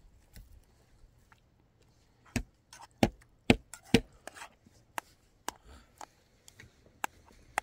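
Food being worked by hand in a metal bowl, with a series of sharp clicks and knocks about half a second apart. The four loudest come a little over two seconds in, and lighter ones follow.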